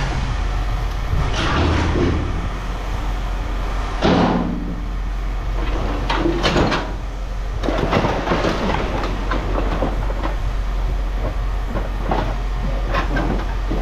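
Scrap metal clanking and clattering as pieces are handled and tossed, with many sharp knocks over a steady low rumble.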